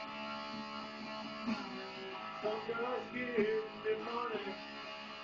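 Electric guitar being played: sustained chords, then bent, wavering notes in the second half.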